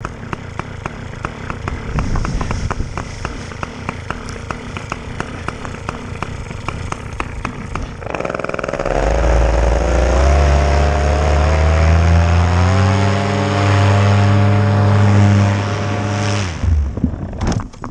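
Paramotor engine and propeller, running low with an even ticking at first, then throttled up about 8 s in, the pitch climbing and holding high for several seconds. The engine cuts off suddenly near the end, followed by a few sharp knocks of the crash.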